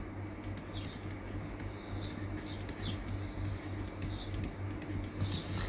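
Scattered light clicks and scratches of a computer mouse and keyboard, over a steady low electrical hum.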